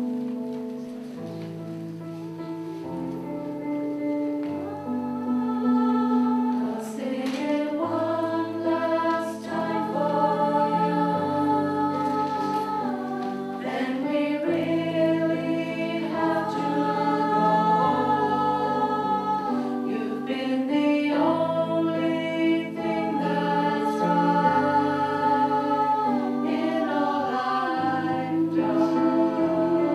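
Women's choir singing in parts, with piano accompaniment.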